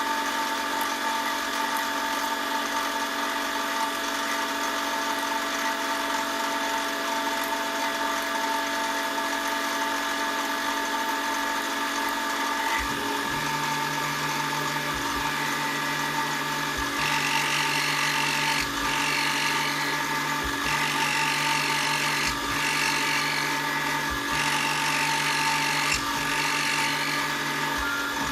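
Power tool running with a steady whine. About halfway through, a lower hum starts cycling on and off about every two seconds, joined by hiss in the later cycles.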